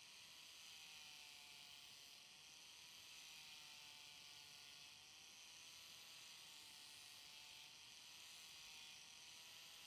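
Angle grinder with a flap disc sanding down wooden knife-handle scales, heard very faintly: a steady hiss with a thin whine that wavers slightly in pitch.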